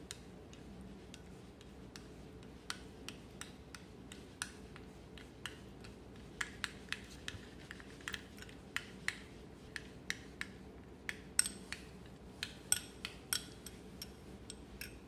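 Light clicks and taps of kitchen utensils against dishware. They are sparse at first and come more often, about two a second, in the second half, over a low steady hum.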